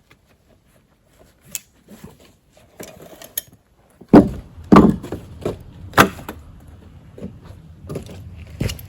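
Knocks and thumps on a wooden deck: light clicks at first, then three loud knocks close together from about four to six seconds in, followed by a few softer ones, as gear is handled on the boards.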